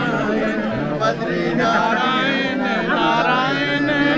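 Hindu devotional kirtan: voices singing a bhajan over steady held tones.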